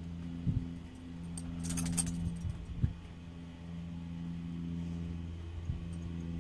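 A steady low mechanical hum, with a brief metallic jingle about two seconds in and a few dull thumps.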